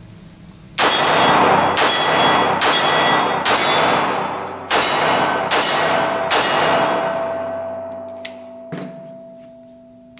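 Seven shots from a SIG P230 .380 ACP blowback pistol, fired at a steady pace of about one a second, emptying the magazine. Each shot is followed by the ring of struck steel targets, and the ringing hangs on and fades for a few seconds after the last shot. Two small clicks come near the end.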